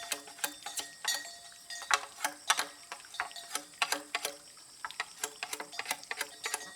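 Rapid, irregular sharp clicks and taps, several a second, over soft background music.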